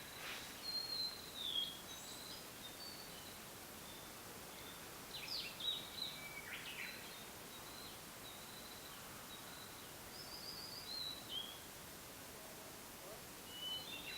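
Blue-and-white flycatcher singing three separate song phrases of clear, high whistles and sliding notes, several seconds apart.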